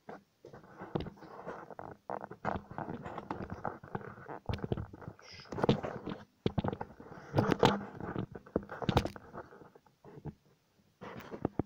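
Handling noise close to the microphone: rustling broken by a string of sharp knocks and clicks, in uneven bursts with short pauses.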